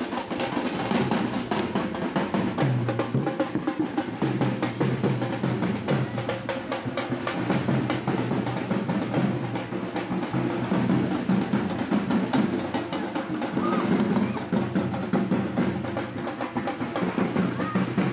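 Several dhol barrel drums beaten in a fast, unbroken rhythm.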